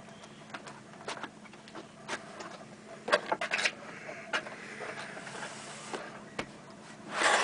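Cardboard packaging being handled: scattered taps and rustles, a quick cluster of sharper clicks about three seconds in, and a louder scraping rush near the end.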